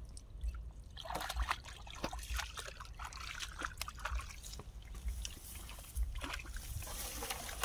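Feet wading and splashing through shallow muddy water, with water sloshing and trickling. The splashes start about a second in and come as many short, irregular strokes.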